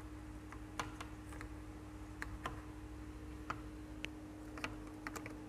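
Scattered light metallic clicks and taps of small engine parts and tools being handled while the oil pump and clutch side of a motorcycle engine are put back together, over a faint steady hum.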